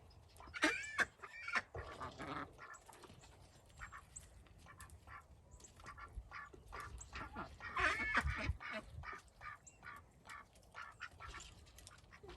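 Domestic ducks calling, with a cluster of quacks about half a second in and another around eight seconds, and faint scattered clicks in between.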